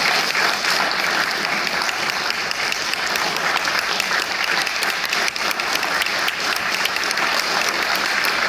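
Audience applauding: many hands clapping in a steady patter.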